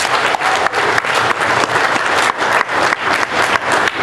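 Audience applauding: many people clapping, dense and steady, for a student being called up for an award.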